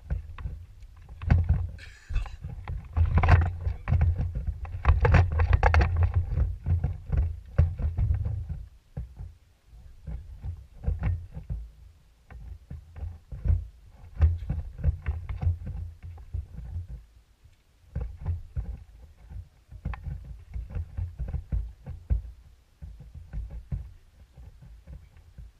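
Rumble and knocks aboard a small fishing boat: an uneven low rumble with many short thumps and knocks as the anglers move about the deck, loudest in the first third.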